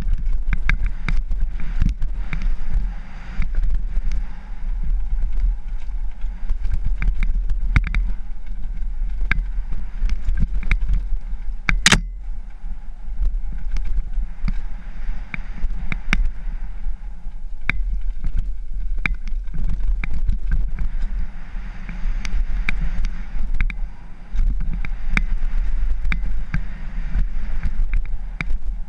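Mountain bike running fast downhill over rough dirt singletrack, heard from a helmet-mounted camera: a steady low rumble of tyres and wind with constant clattering and rattling as the bike hits rocks and roots. One sharp, loud knock comes about twelve seconds in.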